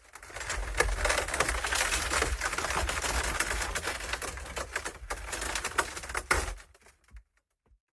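Friction sound effect: dense, rapid crackling and grinding, like something rubbed or strained under pressure, over a low rumble. It starts just after the opening and dies away about seven seconds in.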